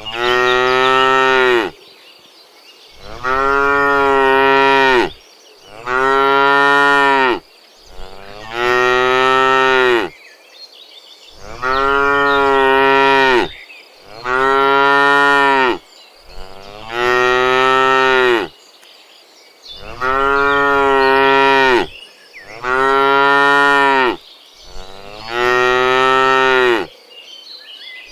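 Cattle mooing: a steady series of about ten long, drawn-out moos, each lasting about two seconds and coming every two to three seconds.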